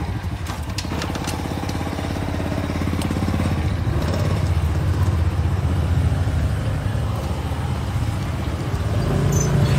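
Hilti TE 6-A22 cordless rotary hammer drilling into concrete, its hammer action running with a rapid, steady beat.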